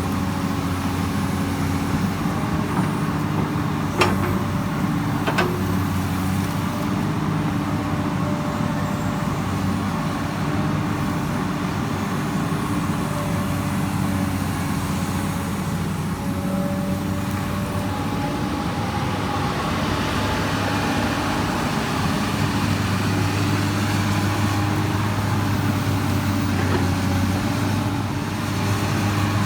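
Komatsu PC200 excavator's diesel engine running steadily while digging, with two sharp clanks about four and five seconds in. The engine note grows stronger for several seconds near the end.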